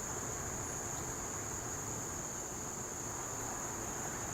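Steady high-pitched insect drone, like crickets, over a low background hiss.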